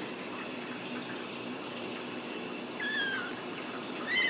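Ragdoll kitten mewing twice, about three seconds in and again near the end: short, high-pitched mews that fall in pitch. A steady low hiss runs underneath.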